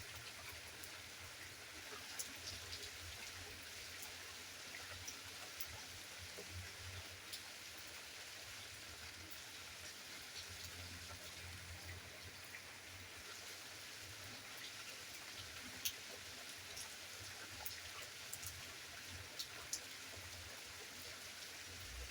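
Steady rain falling, a faint even hiss with drops ticking, and a few louder single drips in the second half.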